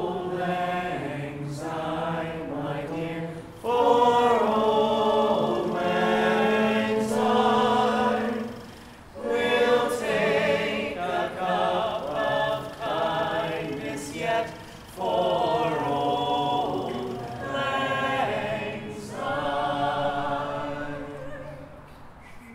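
A group of voices singing together in harmony, with long held notes and some vibrato, in phrases broken by short pauses; the singing fades near the end.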